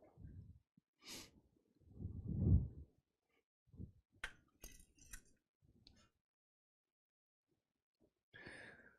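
Small tools and parts being handled on a workbench: a few light clinks and clicks, and a duller knock about two seconds in that is the loudest sound.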